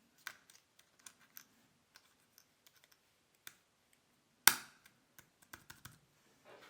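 Small plastic clicks and taps from handling a MacBook keycap and its clips on the laptop keyboard, scattered and irregular, with one sharp, much louder click about four and a half seconds in.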